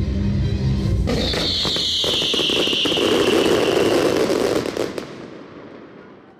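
Fireworks going off: a rapid run of bangs and crackling with a loud whistling hiss that falls slightly in pitch. About a second in, this replaces a steady low hum. The sound fades away over the last two seconds.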